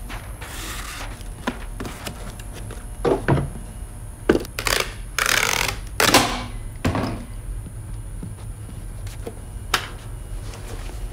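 Cardboard box being handled and sealed with a handheld packing-tape dispenser: a few knocks of the box and its flaps, then several short rips of tape run out across the lid about halfway through.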